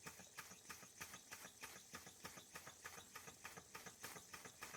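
Small electrically heated Gaselan DM2 model steam engine running on low steam pressure: a faint, even beat of about six chuffs or ticks a second from its cylinder.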